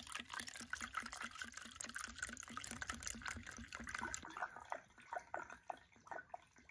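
Clear liquor poured from a bottle into a small drinking glass: a steady trickling, gurgling stream for about four seconds that then turns thin and broken as the pour tapers off.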